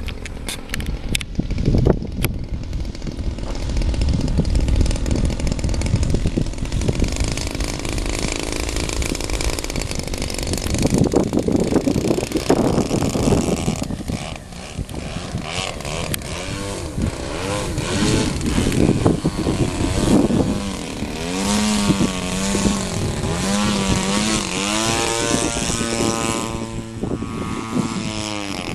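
Engine of a GP Yak 54 81-inch radio-control aerobatic plane holding a hover, the throttle worked up and down so that its pitch rises and falls again and again in the second half. Heavy wind buffets the microphone throughout.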